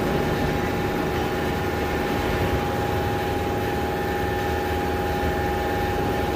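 A wheel balancing machine spins a car wheel with a new tyre on its shaft, running with a steady mechanical hum. This is a balance check spin, and by the end the machine reads zero, which means the wheel is balanced.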